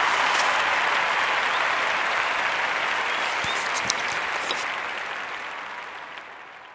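Applause: a dense crowd clapping that fades out smoothly over a few seconds.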